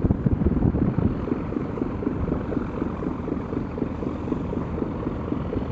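Low, steady rumble of a canal boat's diesel engine running, with wind buffeting the microphone.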